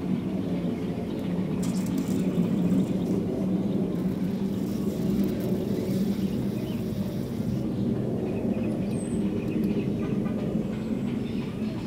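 Steady low mechanical rumble from a running motor or engine, holding an even pitch throughout, with one short high chirp about nine seconds in.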